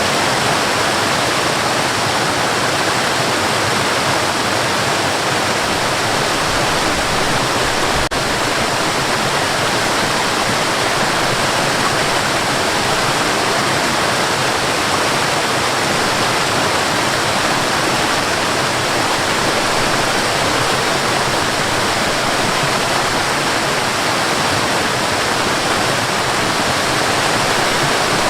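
Waterfall: a steady, even rush of falling, splashing water, with one momentary dip about eight seconds in.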